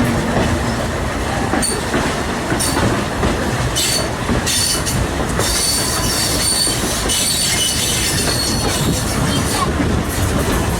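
Steam excursion train's passenger car rolling on the rails, with steady rumble and a few knocks from the track. From about four seconds in, the wheels squeal high and thin.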